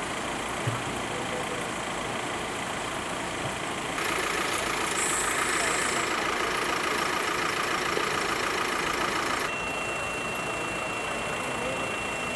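Vehicle engines idling steadily under a noisy street background. The sound steps louder about four seconds in and drops back about nine seconds in, when a thin steady high whine begins.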